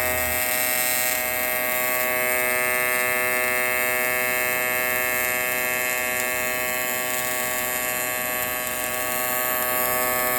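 Electric welding arc buzzing steadily while a bead is laid on thin 3003 aluminum sheet with 4043 filler rod. The buzz cuts off suddenly at the end as the arc is broken.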